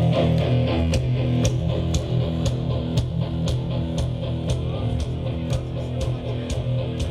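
Live rock band playing loud through a PA: sustained electric guitar chords over a steady beat of about two hits a second.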